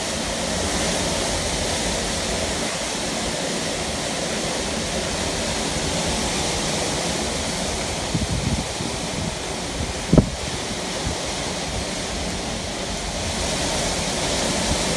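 Storm wind rushing steadily through trees during a violent squall. A sharp knock comes about ten seconds in, with a few smaller bumps shortly before it.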